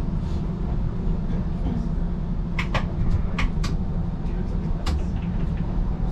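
A TTC streetcar running with a steady low rumble, and about six sharp clicks in the middle seconds.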